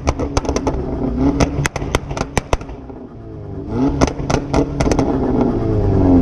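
Car engine revving, with a rapid run of exhaust pops and crackles as the throttle is lifted. Near the middle it falls off, then it accelerates again with rising pitch and a few more pops.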